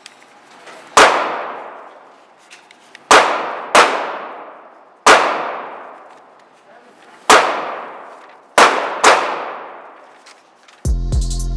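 Seven gunshots in an indoor shooting range, irregularly spaced, each ringing off into a long echo that fades over about two seconds; two of them come as quick pairs. Music comes in near the end.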